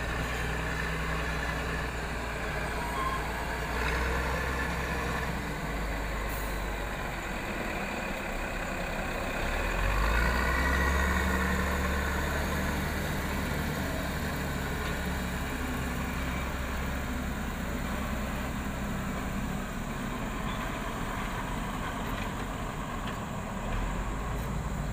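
Heavy diesel engines of a log-grapple wheel loader and a Mercedes-Benz logging truck running as they work, a steady low rumble that swells louder for a couple of seconds about ten seconds in.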